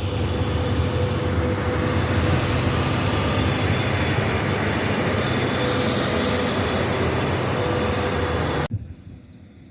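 Noisy road-cleaning truck (street sweeper) running steadily: a low engine hum with a faint whine and a wide hiss over it, cutting off suddenly near the end.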